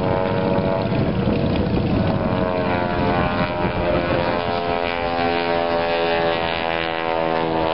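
Aerobatic biplane's piston engine and propeller running in flight, a steady buzzing drone that shifts slightly in pitch as it manoeuvres.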